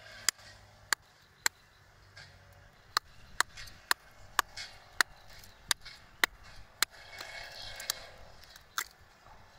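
A bent rebar hook tapping and prying at an oyster shell held in the hand: about a dozen sharp taps at uneven intervals, with a softer scraping near the end, as the shell is cracked open.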